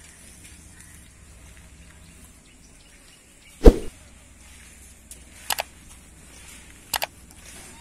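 Knocks on a wire-mesh animal cage: one sharp knock a little past halfway, then two quick double clicks about a second and a half apart.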